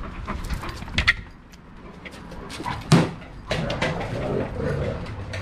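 Large shepherd dogs playing and moving about, with scattered clicks and knocks, a sharp knock about a second in and a loud thump about three seconds in.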